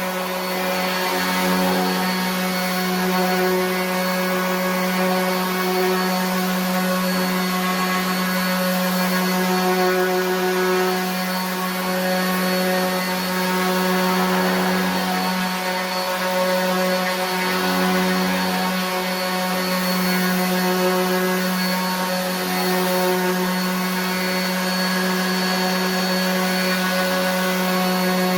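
RIDGID 18-volt cordless 5-inch random orbit sander running steadily while sanding, a constant motor hum and whine that wavers slightly in level.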